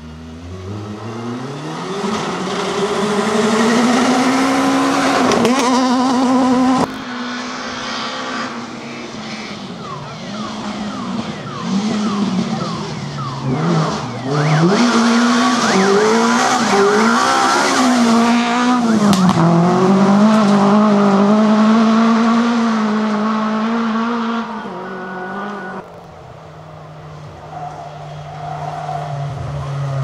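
Rally car engines revving hard one after another on a gravel stage, each note climbing and stepping through gear changes as the car accelerates past, with tyres skidding on gravel. The sound cuts abruptly from one car to the next, and near the end a lower, quieter engine note takes over.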